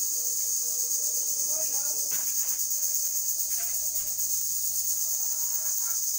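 Dense, steady, high-pitched insect chorus with a fast shimmering pulse, with faint voices underneath.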